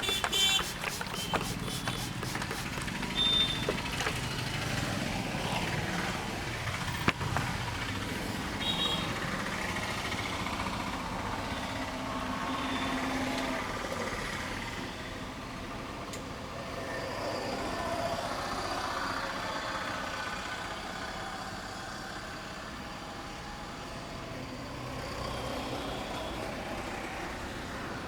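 Street traffic: a steady hum of passing vehicles, with a few sharp clicks near the start.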